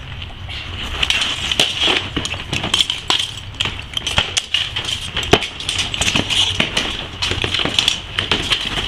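Irregular sharp clinks and knocks of steel seax blades striking each other and a wooden shield during a close-quarters reenactment sword fight, with rattling mail armour.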